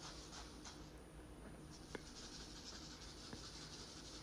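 Faint rustling and scratching of a doll's head, stuffing and bead-filled nylon stocking being handled, with two small clicks about two seconds in and again just over a second later.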